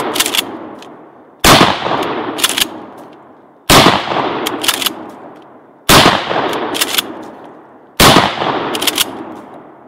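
12-gauge pump-action shotgun fired four times, about two seconds apart, each shot fading in a long echo. Between shots come the short clacks of the pump being racked one-handed, movie-style.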